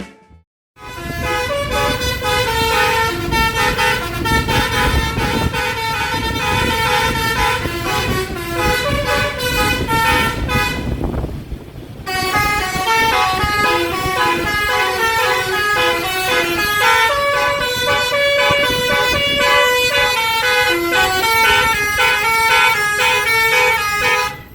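Bus telolet horn, a Basuri multi-trumpet horn, playing a tune as a run of stepped, chord-like notes over road and engine noise. It breaks off for about a second midway, then plays on.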